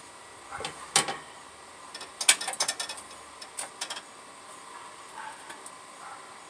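Metal clinks and rattles of an air cleaner being fitted onto a carburetor: a sharp clink about a second in, a quick run of rattling clicks around two seconds in, then a few lighter taps.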